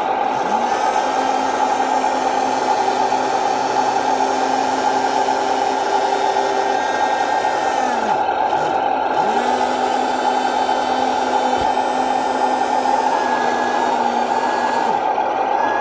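Small electric drive motors and gearbox of an RC scale military vehicle whirring steadily as it drives over sand. The motor tone drops and picks up again a few times: about half a second in, around eight seconds in, and near the end.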